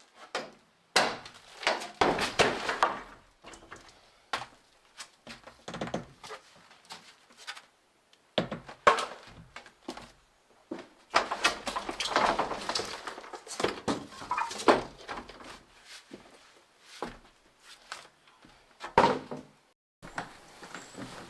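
Irregular knocks, thumps and scraping, with dense bursts of clatter about a second in, around nine seconds in and from about eleven to fifteen seconds, and single sharp knocks in between.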